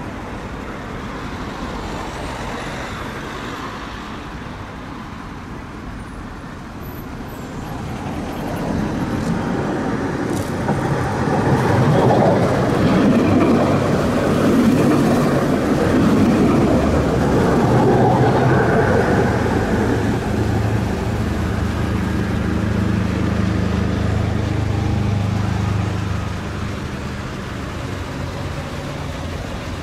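Alstom Citadis 403 tram approaching and passing close by, its rolling noise swelling to the loudest in the middle and then dying away, over steady road traffic. A steady low hum follows and stops a few seconds before the end.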